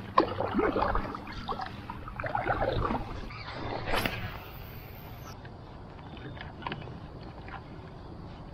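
Water sloshing and lapping around an inflatable paddle board as it moves, with a sharp swish about four seconds in.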